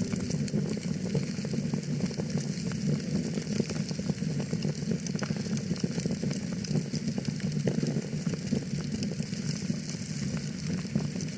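Wood fire crackling in a fireplace: a steady low rush with many small irregular pops and snaps.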